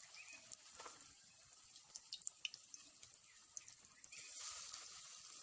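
Gram-flour pakora batter frying in hot oil in a karahi: faint sizzling with scattered pops and crackles, the sizzle growing louder about four seconds in.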